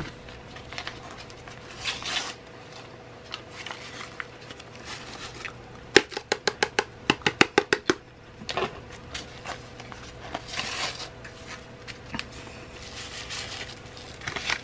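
Paper chili seasoning packets being handled and emptied: scattered crinkling rustles, with a quick run of about ten sharp clicks, some five a second, about six seconds in. A faint steady hum sits underneath.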